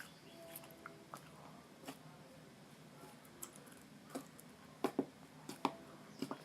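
Slime being squished and poked by hand, making scattered small wet clicks and pops, with a cluster of louder pops about five seconds in.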